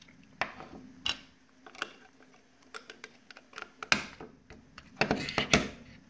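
Plastic refrigerator defrost timer handled and set down on a wooden tabletop: scattered light clicks and knocks, the loudest about four seconds in and twice more about five seconds in.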